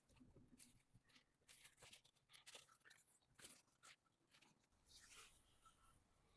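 Near silence, with faint, scattered small clicks and rustles of hand work on the engine's top end.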